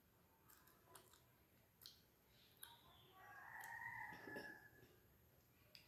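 Faint wet mouth clicks and lip smacks from chewing and finger licking, a handful of them. About three seconds in, a faint drawn-out call with a rise and fall in pitch sounds in the background for nearly two seconds.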